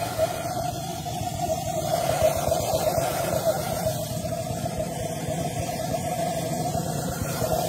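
Gluhareff 130 pressure jet engine running steadily on propane: a continuous hooting tone over a rough, fluttering low rumble.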